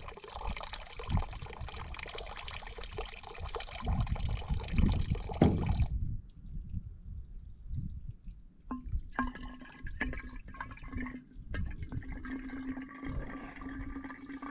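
Spring water running from a pipe spout, splashing into a stone trough. From about nine seconds in it pours into a bottle, giving a steady filling note over the splash, with a low rumble underneath throughout.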